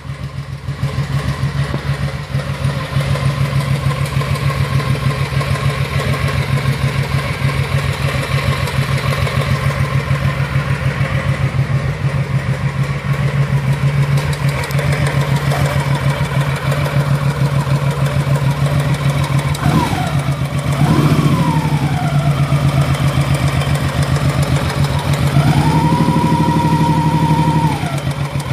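Honda Shadow Sabre V-twin engine running steadily with a knock from the timing (cam) chain, the sign of a worn chain and tensioner. A separate higher tone sounds briefly around twenty seconds, then is held for about two seconds near the end.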